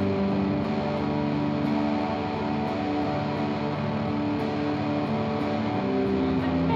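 Semi-hollow electric guitar played through a Vox amplifier, strumming chords that ring steadily in an instrumental passage with no singing.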